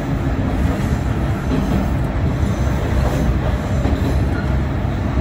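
Kominato Railway diesel railcar running along the line, heard from inside the front of the car: a steady rumble of engine and wheels on rail.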